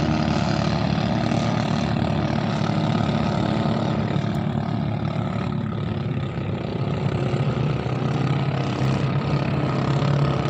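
Small boat engines running with a steady low drone that holds without a break, dipping slightly about six seconds in and then picking up again.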